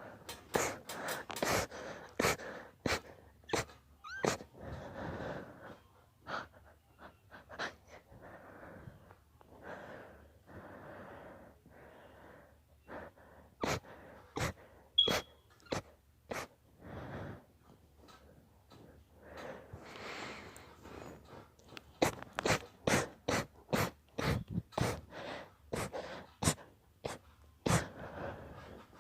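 A person in an induced sneezing fit: many short, sharp sneezes in quick runs, with noisy breaths between them. The sneezes come fastest, two or three a second, in the last several seconds.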